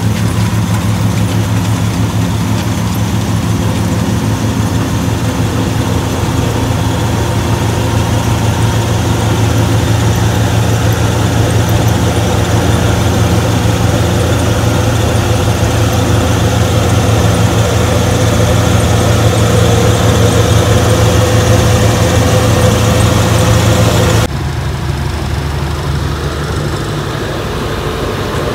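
Combine harvester's engine running loudly and steadily. About 24 seconds in, the sound cuts abruptly to a quieter engine running.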